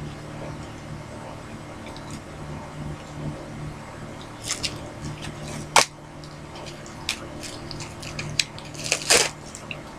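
Hands handling stiff board-game card decks and their packaging: scattered short rustles and a few sharp clicks, the sharpest about halfway through and a brief rustle near the end, over a steady low hum.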